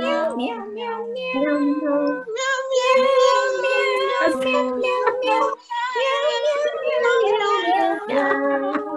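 Several voices on a video call vocalizing together in long, wavering, sung tones, as in a laughter-club exercise, with a brief break a little past the middle.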